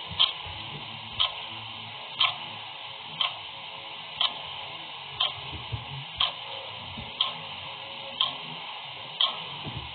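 Clock ticking steadily, about one tick a second, over a faint steady hiss.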